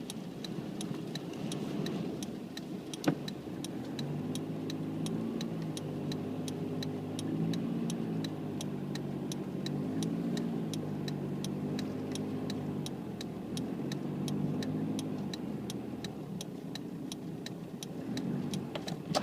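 Car engine running with a steady hum, with an even ticking of about two clicks a second, typical of a hazard-light or indicator relay. There is a single sharper click about three seconds in.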